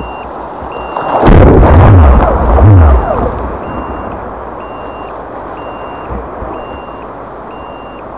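Water rushing and splashing over a camera mounted low on a small RC jet boat in surf, loudest and buffeting for about two seconds between one and three seconds in. A two-tone electronic beep repeats about once a second throughout.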